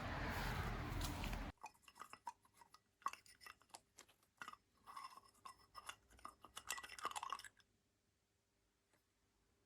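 Petrol lawnmower engine running, cutting off sharply about a second and a half in. Then faint, scattered metallic clicks and clinks of hand tools as the mower's carburetor is taken apart to find a fuel clog.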